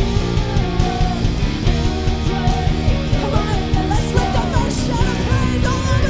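Live worship band playing with guitars over a steady beat. A wavering melodic line, either a voice or a lead instrument, rises above it in the second half.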